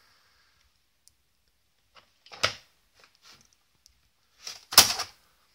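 A few faint clicks and rubs of handling on an opened hi-fi receiver's metal chassis, then one sharper knock near the end.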